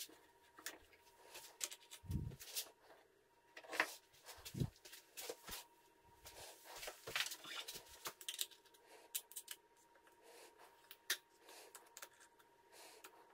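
Scattered light clicks, taps and rustles of hand tools being picked up and handled at a workbench, with two brief low thumps in the first half.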